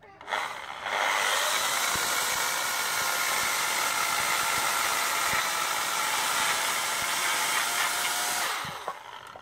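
Husqvarna 420 EL 2000 W corded electric chainsaw cutting wood: the motor spins up with a steady whine for about seven seconds. Near the end the trigger is released and the motor winds down.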